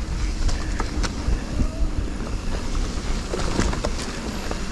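Specialized Stumpjumper Evo Pro mountain bike ridden along a dirt trail: a steady low rumble of wind and tyre noise, with scattered sharp clicks and knocks from the bike rattling over the ground.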